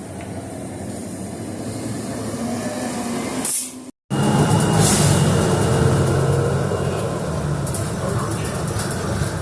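A rail vehicle running past, its rumble growing louder, then cut off abruptly for half a second about four seconds in before carrying on louder, with a thin steady whine for a few seconds.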